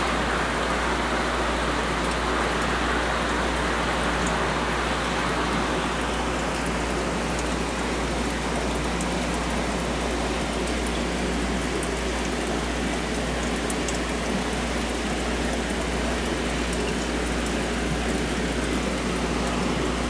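Steady splashing and bubbling of an aquarium's water circulation, like rain falling on water, with a low steady hum beneath it.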